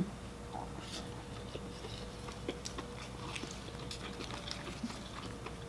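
Close-miked chewing of boiled seafood: irregular small wet clicks and smacks of the mouth.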